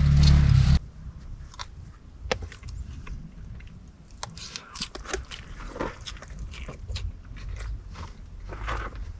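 A loud low rumble cuts off abruptly under a second in. Scattered small clicks, taps and crunchy rustles follow at irregular intervals.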